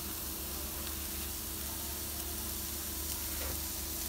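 Raw beef burger patties sizzling on a charcoal grill grate over hot coals: a steady, even hiss.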